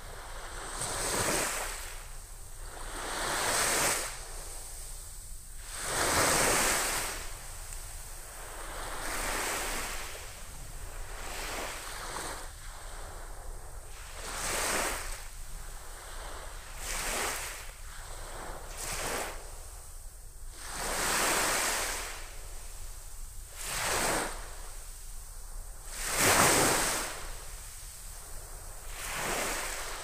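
Small, gentle waves washing up on a sandy beach: a soft hiss of surf that swells and fades every two to three seconds. The biggest surges come about six seconds in and again near the end.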